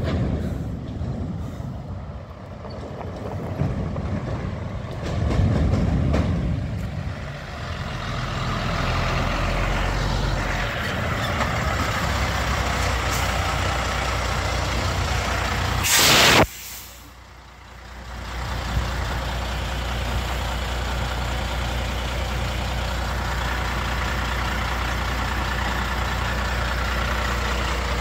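Heavy diesel trucks running past, then a sharp, loud air-brake hiss lasting about half a second near the middle. After the hiss, a truck engine idles steadily.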